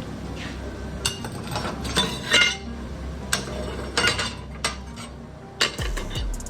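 Metal clinking and knocking: a dozen or so sharp, separate clinks as steel parts and hand tools are handled, a few ringing briefly.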